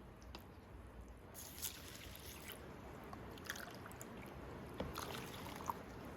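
Raw rice being washed by hand in a container of water: faint swishing and sloshing with occasional small splashes and clicks, as the starch is rinsed off.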